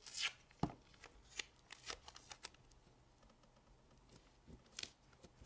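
Adhesive tape crinkling and rustling as fingers fold and press it around a watch's caseback, with scattered small clicks and taps. The loudest crinkle comes right at the start, with another cluster of rustles near the end.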